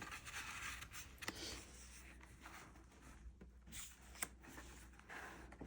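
Faint rustling of watercolor paper being handled, with a few soft ticks, one about a second in and another about four seconds in.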